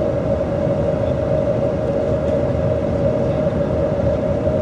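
Steady drone of a river passenger boat's engine heard on board, a constant hum over a low rumble.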